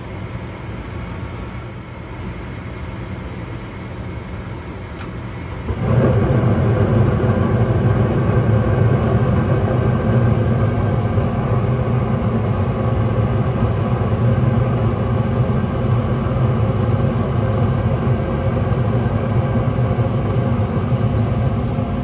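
Gas furnace lighting: the draft inducer hums steadily while the hot surface ignitor glows, a single click sounds about five seconds in as the gas valve opens, and about a second later the burners catch with a sudden, louder steady rumble that carries on. The furnace fires only when the loose Molex connector on its control board makes contact, a fault traced to cracked solder joints on the board.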